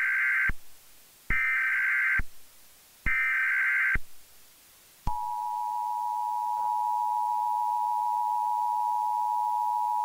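Emergency Alert System SAME header: three bursts of digital data tones, about a second each, then, about five seconds in, the steady two-tone EAS attention signal (853 and 960 Hz) begins and holds. Together they mark the start of an emergency alert message.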